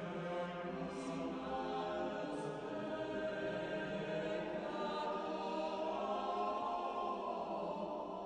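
Slow background music of long held chords that shift gently, with no speech.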